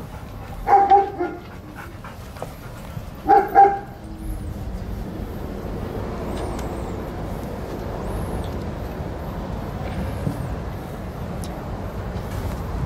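A dog barks twice, about a second in and again about three and a half seconds in, each bark a quick double note. A steady low rushing noise follows.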